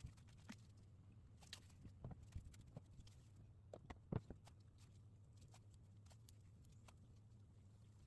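Faint scattered light taps and clicks, the loudest a little after four seconds in, over a low steady hum.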